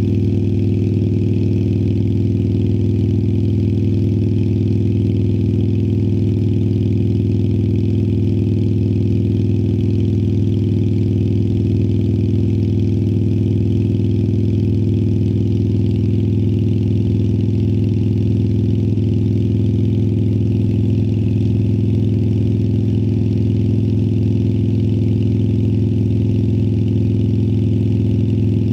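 2018 Harley-Davidson Sportster Iron 1200's air-cooled 1200 cc V-twin running through Vance & Hines Twin Slash slip-on mufflers, held at a steady engine speed with an unchanging pitch.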